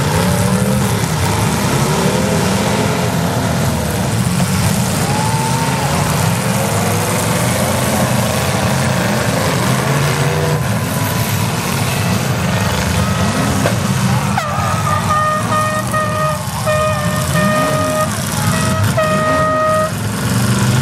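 Several demolition derby cars' engines running and revving, rising and falling in pitch. In the second half a horn sounds in several short steady blasts.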